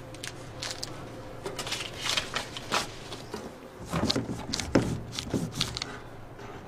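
Small handling noises: light rustling and clicking, then a plastic card scraping and tapping on a metal box lid as drugs are crushed and chopped for snorting. The scrapes and taps grow louder about four seconds in.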